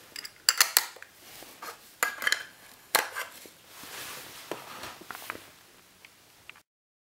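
Plastic lens caps clicking on and knocking against a Canon EF 50mm f/1.8 II lens as it is handled: a few sharp clicks about half a second in, and again around two and three seconds in, then softer handling sounds before the sound cuts off near the end.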